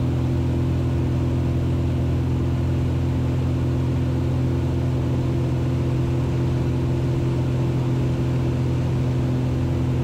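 Cessna 182's piston engine and propeller droning steadily inside the cabin, at climb power during a missed-approach climb.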